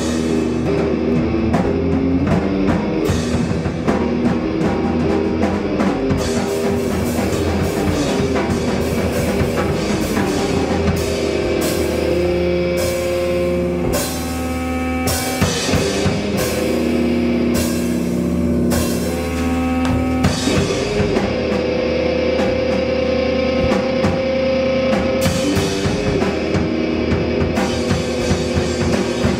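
Rock band playing live: electric guitar, bass guitar and a drum kit with cymbals. The sound eases off briefly about halfway through, then picks up again.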